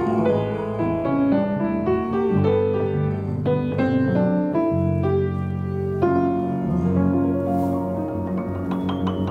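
Piano playing a melodic original jazz tune over chords, with sustained low notes beneath the melody.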